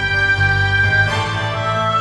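Background music: sustained instrumental chords, shifting to a new chord about a second in.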